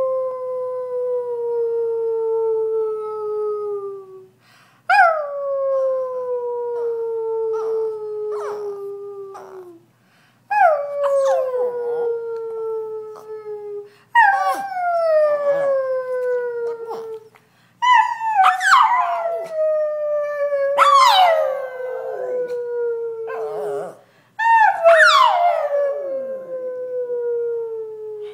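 Brussels griffon howling, 'singing' in a run of about six long howls, each a few seconds long, that jump up briefly and then slide slowly down in pitch, with short gaps between them. Sharper, quickly sliding high cries cut in over the later howls.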